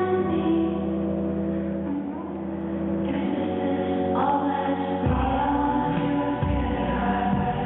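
Music with sustained, choir-like singing over held low notes; the low notes shift about five seconds in.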